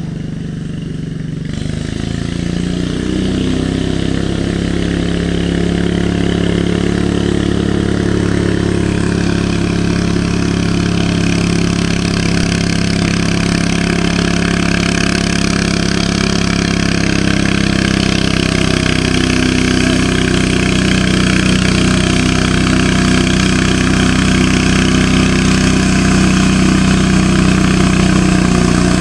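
Garden pulling tractor engine running steadily at idle, growing gradually louder.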